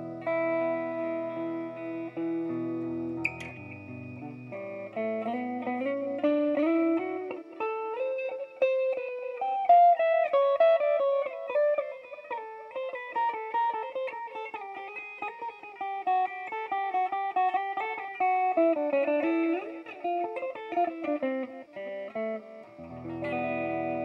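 Electric guitar played through a BOSS DD-8 digital delay pedal set to reverse mode. Held chords open, then single notes climb into a busy melodic line from about four seconds in, and chords return near the end.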